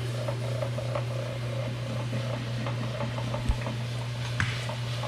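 A machine running steadily with a low hum and light rattling ticks, with two short knocks about three and a half and four and a half seconds in.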